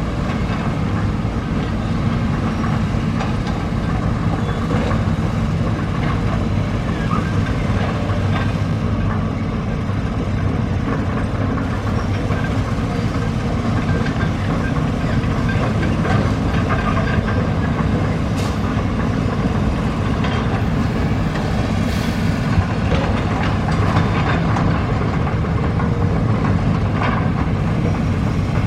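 Heavy excavator's diesel engine running steadily under load, with scattered clanks and knocks from the machine at work.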